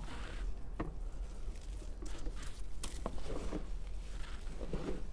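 Hands digging and sifting through loose container potting soil in search of sweet potato tubers: irregular rustling scrapes with a few sharp clicks.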